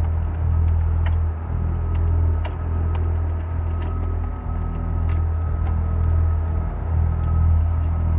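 Fishing boat's engine running steadily with a loud low drone, a faint steady whine above it, and scattered sharp clicks about once or twice a second while a longline pays out of its tub over the stern.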